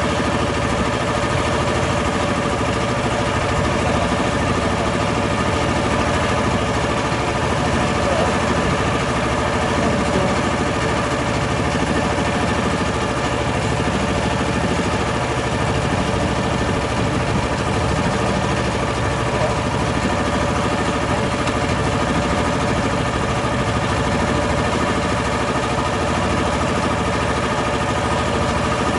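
Wooden river tour boat's motor running steadily under way, an even, rapid engine pulse with a fixed hum.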